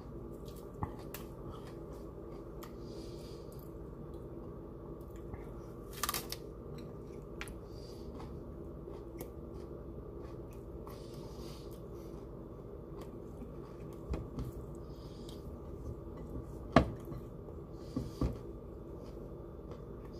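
Raw broccoli being snapped apart and chewed: a few scattered sharp crunches, the loudest about three-quarters of the way through, over a steady low background hum.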